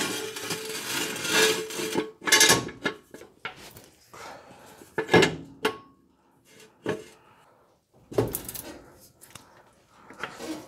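Steel jack stand and jack being handled under a pickup on a concrete floor: a scraping rub for about the first two seconds, then scattered sharp metal clanks and knocks.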